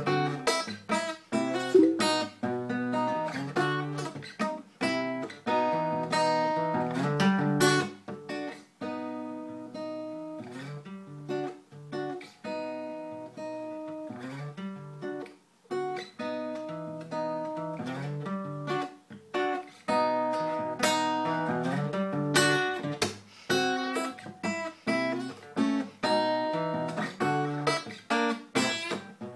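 Solo acoustic guitar, strummed chords ringing out in a steady rhythm.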